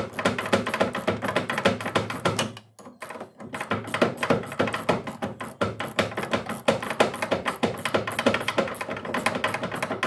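Socket ratchet clicking rapidly as it backs out the door hinge bolts, with a short pause about three seconds in.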